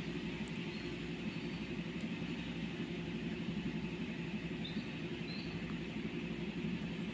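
Steady low background hum with no speech, and a few faint high chirps now and then.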